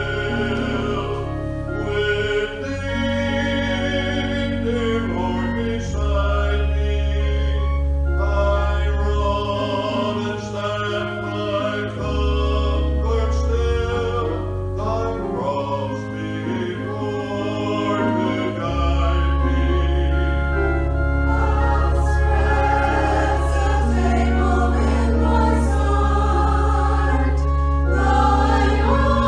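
Music: a choir singing a worship song over accompaniment with long held low bass notes.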